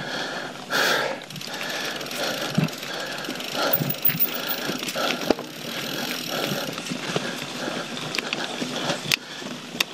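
YT Jeffsy full-suspension mountain bike riding down rocky, rooty singletrack: a steady rush of tyre noise over rock and dirt, broken by many irregular clicks and knocks from the chain and frame rattling over the bumps.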